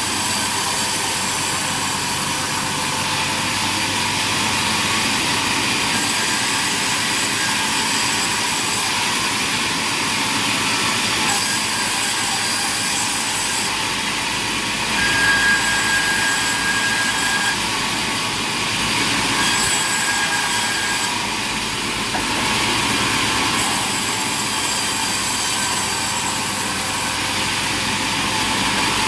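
Sawmill machinery running steadily, a dense mechanical noise, with a brief high whine twice near the middle.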